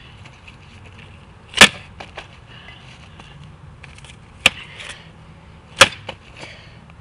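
A paper notebook, part of a homemade mock laptop, struck against concrete: three sharp smacks, the first about a second and a half in and two more a little over a second apart later on, with light scuffing and rattling after each.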